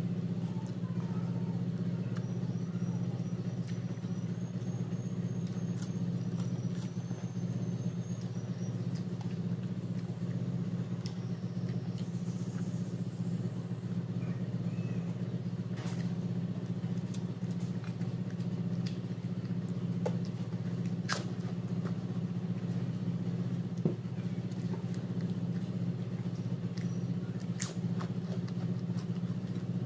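Chewing and eating rice by hand, with a few sharp clicks against a plate, over a loud steady low hum.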